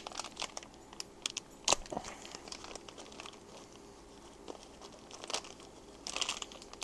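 Clear plastic parts bags from a gasket kit crinkling as they are handled and opened, in irregular crackles. There is one sharper crackle a little under two seconds in and a busier stretch near the end.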